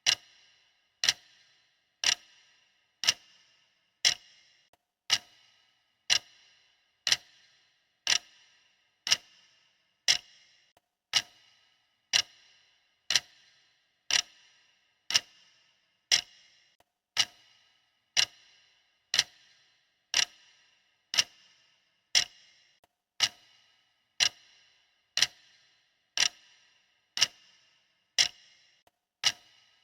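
Clock ticking steadily, one sharp tick about every second, each with a short ring.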